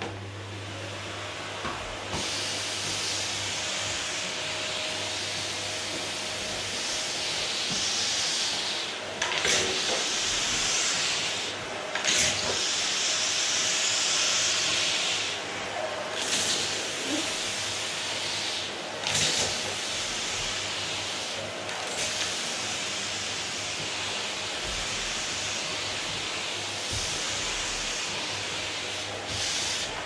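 Canister vacuum cleaner running steadily: a low motor hum under a strong suction hiss that swells and dips every few seconds as the nozzle is moved over the floor.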